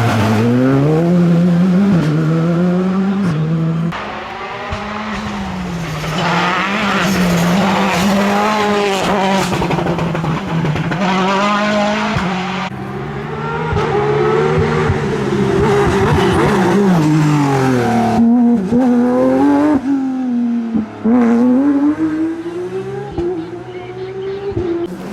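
Rally car engines revving hard, the pitch climbing and dropping again and again through gear changes and lifts, with tyre squeal as the cars go by at speed.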